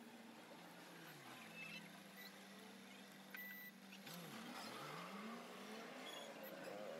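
Faint steady engine hum whose pitch dips and then rises again about four to five seconds in.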